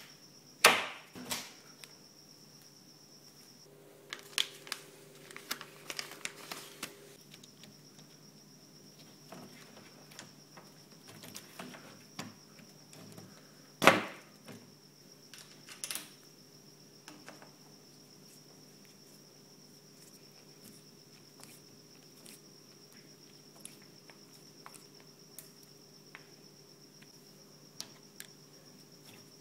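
Scattered clicks and knocks of a sliding door's metal frame and plastic roller carriage being handled, taken out and adjusted with a screwdriver. The sharpest knocks come about a second in and again about fourteen seconds in, with a run of smaller clatters a few seconds in and light ticks after.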